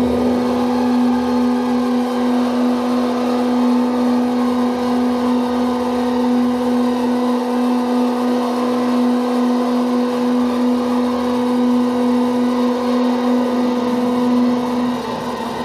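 Sustained droning room resonances: a strong steady low tone and a fainter higher one over a hazy wash, left after a spoken text has been re-recorded and played back into the room again and again until the speech has dissolved into the room's resonant frequencies. Near the end the higher tone stops and the sound drops a little.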